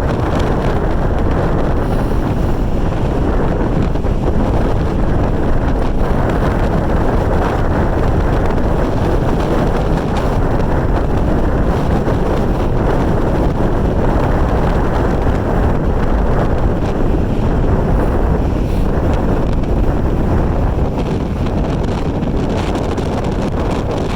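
Strong storm wind buffeting the microphone, with heavy surf from large storm waves breaking on the lake shore. The noise is loud and steady throughout.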